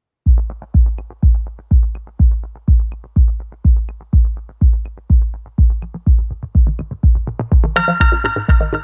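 Electronic background music: a deep kick drum beating about twice a second, with a synth layer coming in near the end.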